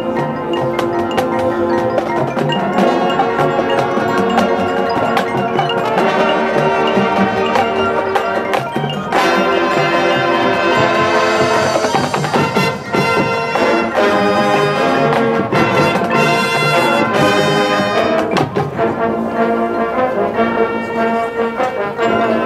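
High school marching band and front ensemble playing: brass chords with marimba, xylophone and glockenspiel, and sharp percussion hits about halfway through.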